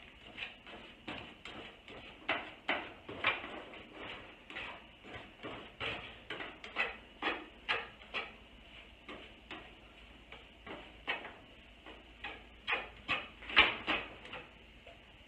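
A fork scraping and tapping against a frying pan while scrambling eggs, in short, irregular strokes about two a second. The strokes stop shortly before the end.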